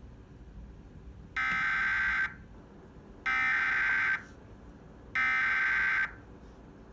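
NOAA Weather Radio Emergency Alert System SAME header: three identical buzzy digital data bursts, each just under a second long, about a second apart, the encoded start of an alert broadcast.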